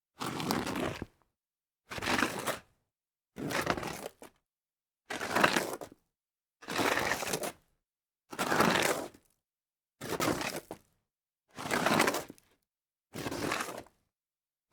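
A series of Foley slides on dirt: nine separate gritty scrapes, each under a second long, with a short silence between them.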